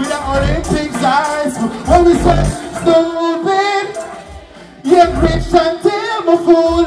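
Live dancehall music through a stage PA: a voice singing over a bass-heavy beat. The sound drops away for about a second, a little past halfway, then comes back in full.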